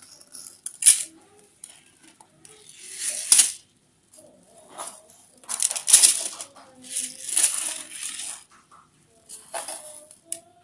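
Dry uncooked rice grains scraped, scooped and poured with a small plastic scoop: several separate swishing, rattling bursts of pattering grain.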